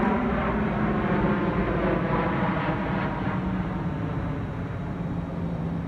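Airplane flying over, a steady drone with several held tones that slowly fades.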